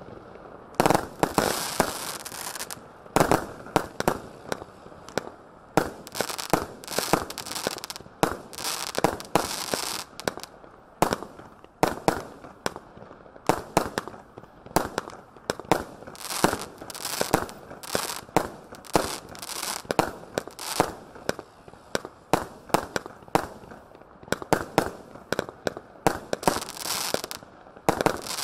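Phantom firework cake, two 105-shot Category 3 cakes linked on a single ignition, firing shot after shot at about two reports a second. Stretches of crackling hiss come from the crackle and glitter stars bursting.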